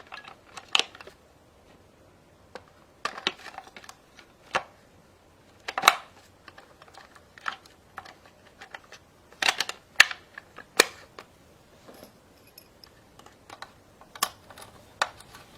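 Irregular clicks and taps of hard plastic, some in short clusters: batteries being fitted into a remote-control toy monster truck and its remote.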